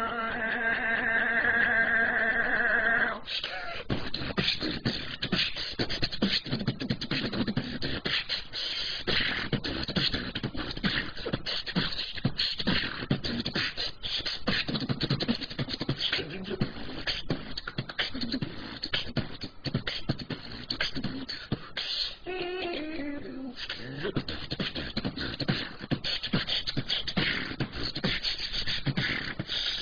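A woman beatboxing: a held, slightly wavering pitched vocal tone for about three seconds, then a fast, continuous run of vocal percussion sounds, with a falling vocal glide about two-thirds of the way through.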